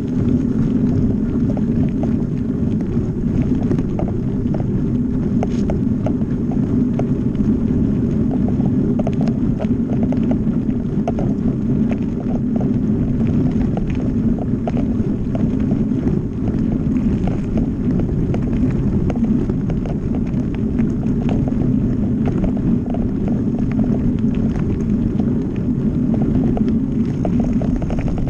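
Mountain bike ridden fast down a gravel forest trail: a steady rumble of tyres on the dirt and wind buffeting the microphone, with frequent short rattles and clicks from the bike over bumps.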